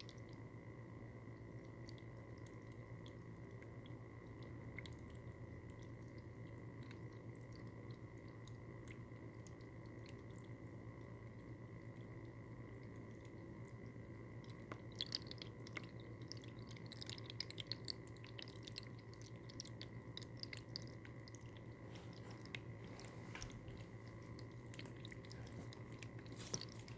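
Pet water fountain running up close: its small pump hums steadily, under scattered small clicks and crackles of trickling water that grow busier from about halfway.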